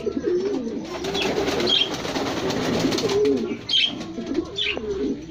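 Domestic pigeons cooing in a loft, several low wavering coos overlapping, with a few high short chirps. About a second in, a rustling noise rises over the cooing for a couple of seconds.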